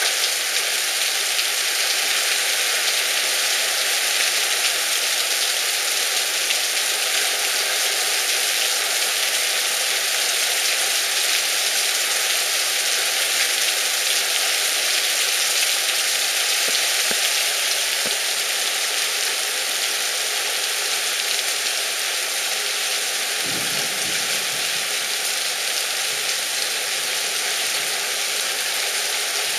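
Heavy rain pouring down onto a flooded street: a loud, steady hiss of downpour that does not let up.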